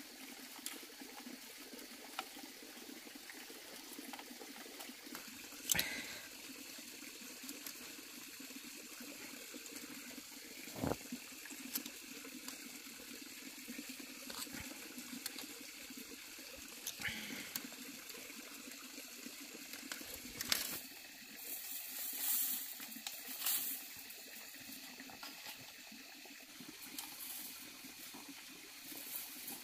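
Steady trickling, running water, with a few sharp clicks and clinks of pliers working chain-link fence wire. The loudest clicks come about six seconds and twenty seconds in, with a short cluster soon after.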